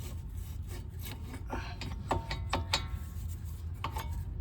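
Front brake caliper of a Kia Optima being worked off the pads and rotor: metal scraping with several short metallic clinks, over a steady low rumble.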